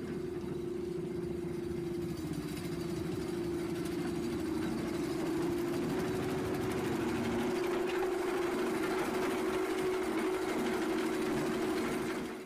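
Mobile screening plant running: a steady mechanical hum and drone from its engine and spring-mounted vibrating screen, with soil and stone being fed along its conveyor.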